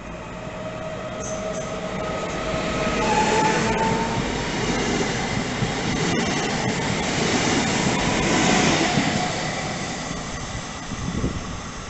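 Train passing through the station. Its rumble builds over the first few seconds, stays loud, then fades near the end. A high, steady whine at the start steps up in pitch about three seconds in.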